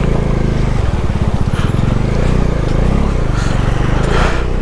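Bajaj Dominar 250's single-cylinder engine running steadily while the motorcycle is ridden, with a rush of wind and road noise over it.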